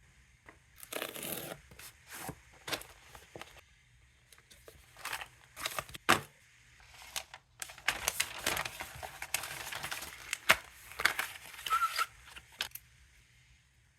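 Packaging being torn and crinkled open by hand, in irregular bursts with scattered sharp clicks and scrapes, busiest in the second half.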